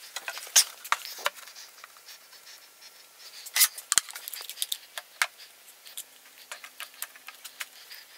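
Scattered clicks and knocks of workshop handling: a board set upright against a melamine assembly square and a one-handed plastic bar clamp clamping it. The loudest knocks come about half a second in and about three and a half seconds in, with smaller clicks between and after.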